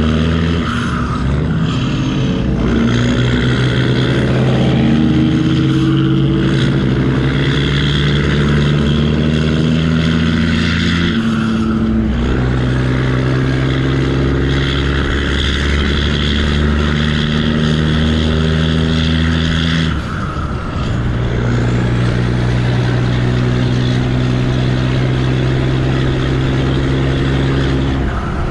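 Kenworth T800 semi tractor's diesel engine pulling a loaded lowboy. It climbs steadily in pitch in each gear, with brief breaks in power and a drop in pitch at several upshifts.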